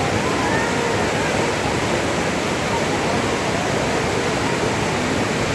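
Steady rush of river water during whitewater rafting, an even wash of noise with no breaks. Faint voices call out in the first second.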